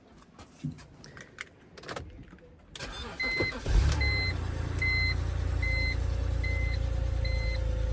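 BMW X3 E83's 2.5-litre straight-six is cranked after a few faint clicks and catches almost four seconds in. It then idles smoothly with no misfire on its new coil packs. A dashboard warning chime beeps about once a second from just before the start.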